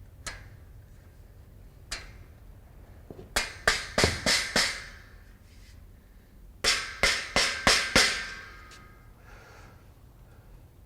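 Rubber mallet tapping steel shelving beams down into the post slots: two quick runs of about five or six blows a few seconds apart, with a short metallic ring after the second run.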